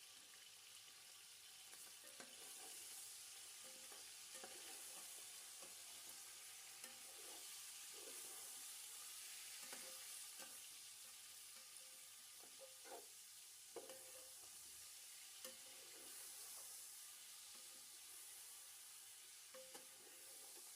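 Food sizzling in a cooking pot, with scattered scrapes and clinks of a spoon stirring it.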